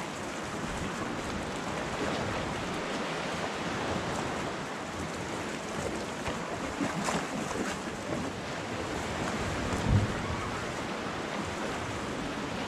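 Small waves lapping and washing against shoreline rocks, with wind buffeting the microphone, and a single brief thump late on.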